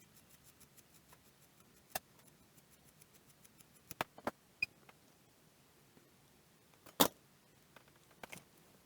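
Scattered small clicks and taps of metal hand tools being handled and set down at a soldering bench, with one sharper knock a little before the end.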